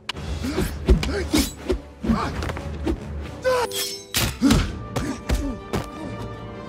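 Movie fight sound effects: a quick run of punches and blows landing, about a dozen sharp hits, over an orchestral film score.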